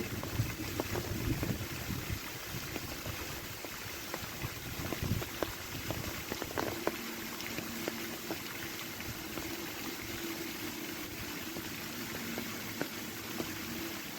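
Water flowing and bubbling, with scattered small ticks throughout. Wind buffets the microphone in the first few seconds, and a faint steady hum runs through the second half.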